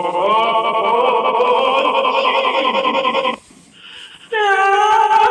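A long, wavering voice-like cry lasting about three and a half seconds. After a short break a second, higher and steadier cry begins.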